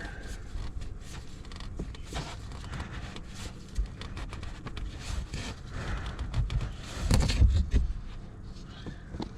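Scattered clicks and scrapes of hands and parts as the oil filter and drain plug go back on an ATV engine. A louder, deeper rustle of handling comes about seven seconds in.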